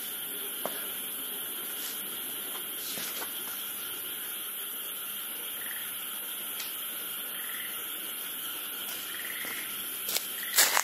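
Crickets and other night insects chirring steadily, with a few short higher chirps. Near the end come a couple of sharp knocks, the loudest sound here.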